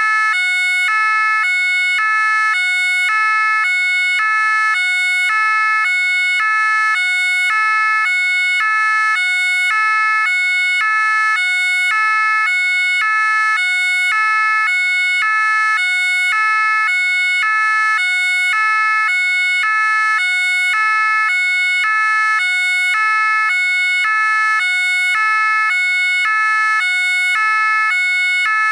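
French gendarmerie two-tone siren sounding continuously, alternating evenly between two notes, about one note every half second, at a steady loudness.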